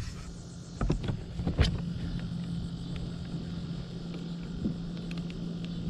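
A steady low hum with wind and water noise, and two sharp knocks on the plastic kayak about a second and a second and a half in, as the angler shifts to kneel while fighting a fish.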